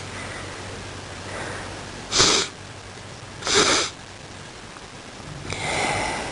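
A man coughing in bed: two short, dry coughs about a second and a half apart, then a longer, breathy breath near the end.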